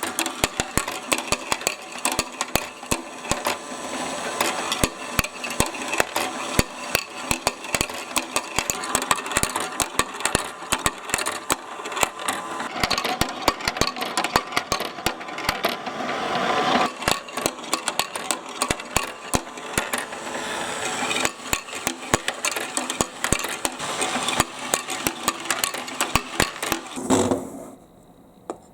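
Many marbles rolling and clattering down a marble-run track, with a dense stream of clicks and knocks over a steady rolling rumble. It stops suddenly near the end.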